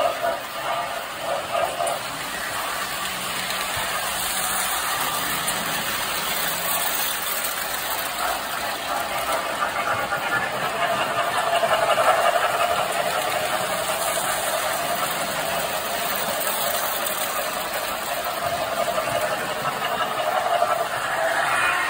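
Tinplate electric toy trains running on three-rail tubular track, making a steady mechanical running noise. It grows louder about halfway through and again near the end.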